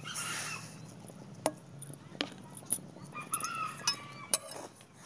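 Dry semolina (suji) poured into a dark pan: a short granular hiss at the start as it lands, then a few sharp clicks and clinks.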